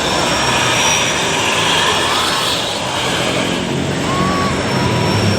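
Large tour-bus engines and tyres running loud and steady as buses pass in a convoy.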